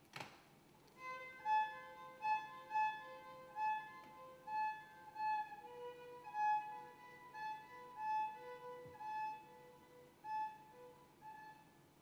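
Solo viola played with the bow in a high register: a repeating figure of short notes, about one and a half a second, over a held note. It starts about a second in, after a sharp knock, and dies away near the end.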